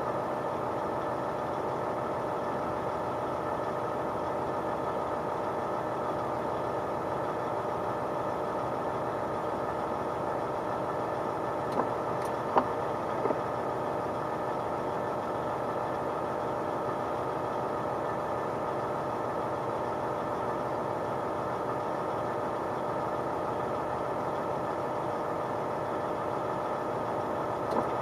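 Diesel engine of a Mack CXU613 truck running steadily. Three short clicks or knocks come about halfway through.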